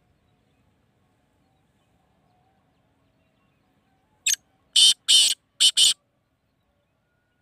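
Male black francolin calling: one short harsh note, then four loud, grating notes in quick succession, the whole call lasting under two seconds about four seconds in.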